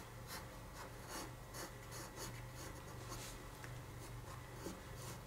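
Faint scratching of a graphite pencil on paper in short, repeated drawing strokes, about two a second.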